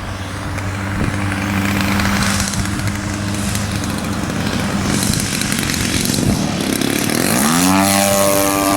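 The 50cc gas engine of a large RC aerobatic plane runs at a steady low idle on the landing approach. Near the end the throttle opens: the engine note rises quickly in pitch and holds at a higher, louder run.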